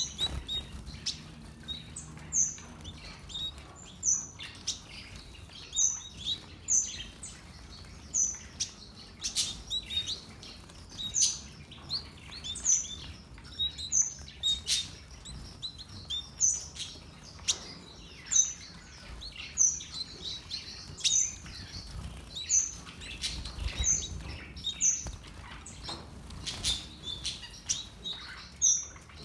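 Aviary colony of small finches calling: short, high chirps repeated every second or so, with wing flutters in between.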